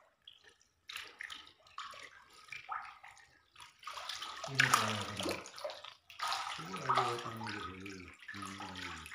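Water splashing and sloshing in a shallow concrete fish tank as fish are released and thrash about in it, in irregular splashes, with a voice in between.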